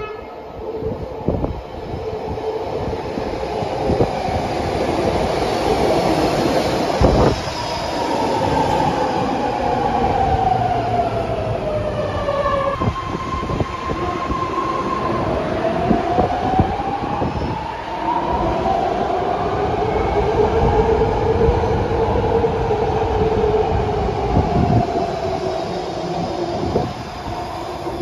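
BART rapid-transit trains running through elevated stations: a continuous rumble and clatter of steel wheels on rail, with the electric traction whine gliding down in pitch as a train slows in the first half, then rising and falling again in the second half as a train pulls away.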